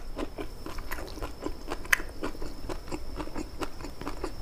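Close-miked wet chewing of boiled papaya stems and leaves in peanut sauce: a steady run of small mouth clicks and smacks, with one sharper click about two seconds in.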